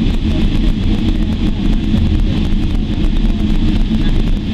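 Steady low cabin rumble of a jet airliner taxiing, its engines running and its wheels rolling on the taxiway, heard from inside the passenger cabin.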